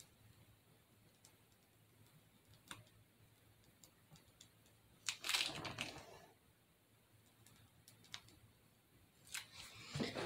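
Quiet handling of a plastic piping bag as spackle is squeezed out: scattered light clicks, with a louder crinkling rustle about five seconds in and again near the end.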